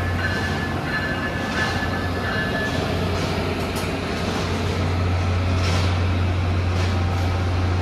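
Amtrak Siemens ACS-64 electric locomotive and its Amfleet coaches giving a steady low hum, with a faint high tone coming and going and a few brief soft hisses.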